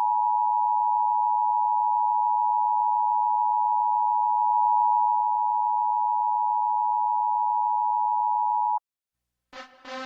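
A loud, steady electronic beep tone at a single pitch, like a sine test tone, held unbroken for almost nine seconds and then cut off abruptly; music starts about half a second later, near the end.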